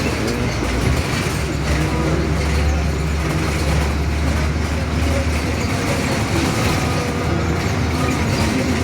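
Inside a 2015 Blue Bird Vision school bus under way: a steady low engine drone with road noise.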